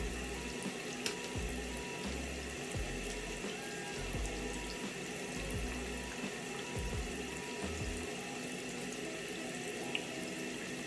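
Tap water running steadily into a bathroom sink, with music playing underneath.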